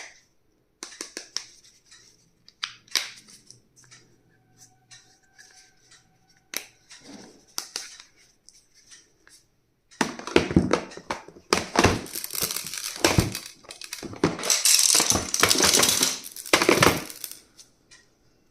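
Light clicks and taps of items being handled, then about ten seconds in, several seconds of loud crinkling and rustling of packaging.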